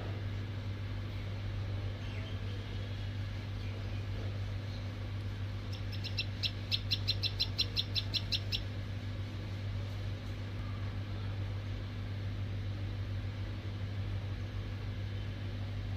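A bird calling in a rapid series of about fourteen short, high notes for two and a half seconds, starting about six seconds in, over a steady low hum.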